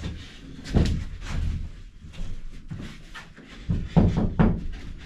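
Irregular thumps and knocks of plywood sheets being handled and set against a plywood bus subfloor. One loud thump comes about a second in, and a cluster of heavier knocks near the end.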